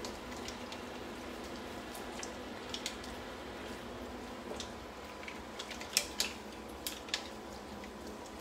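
Kitchen tongs with silicone tips tossing spaghetti and mussels in a stainless steel frying pan: scattered sharp clicks and light scrapes, with the loudest clicks about six to seven seconds in, over a steady faint hum.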